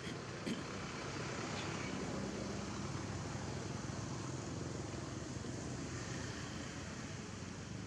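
A motor vehicle's engine running steadily with a low hum, with a short click about half a second in.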